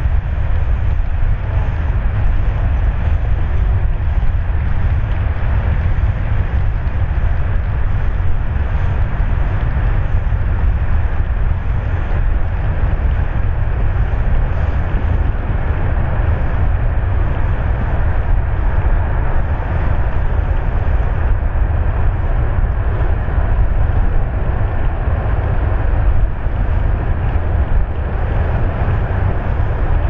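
Wind buffeting a GoPro Hero 8's microphone in a steady, loud low rumble, with an even hiss beneath it.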